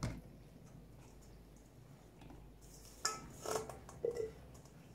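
Small plastic toy figures clattering out of a tipped stainless-steel mixing bowl, with the bowl ringing briefly, in a few short bursts starting about three seconds in.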